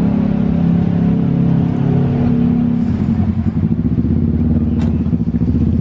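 Engine of a vehicle idling close by in slow traffic: a steady low drone that turns into a fast, pulsing exhaust beat about three seconds in.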